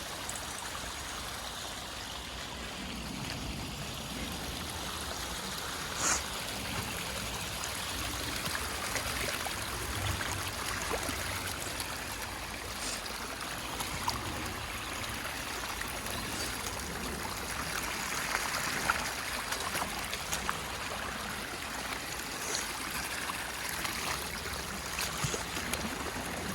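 Rain-swollen stream flowing steadily, a continuous rushing and trickling of water. A few short sharp clicks sound over it, the loudest about six seconds in.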